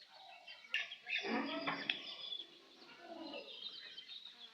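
Chickens clucking while feeding: a run of short, broken calls, the loudest and fullest about a second in. A single sharp click comes just before it.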